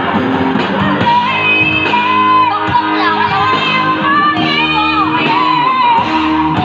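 Amateur singer singing into a microphone over a karaoke backing track, both played loud through a PA loudspeaker system; the voice holds long, wavering notes over a steady backing.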